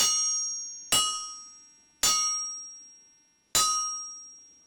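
Home-built railroad-track anvil struck four times with a hammer, each blow ringing with clear high tones that fade away over a second or so. It has a pretty good ring, which the builder takes as a sign that the anvil is fairly solid.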